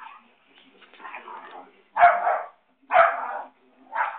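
Dog barking: a few faint sounds, then three loud barks about a second apart in the second half.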